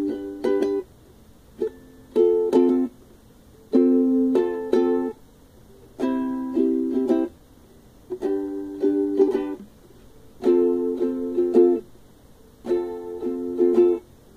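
Ukulele strummed in groups of quick chord strokes, one group about every two seconds with short pauses between.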